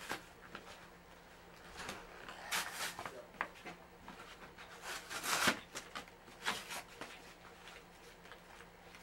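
Toy packaging crinkling and tearing as it is pulled apart by hand, in irregular bursts, the loudest about five and a half seconds in.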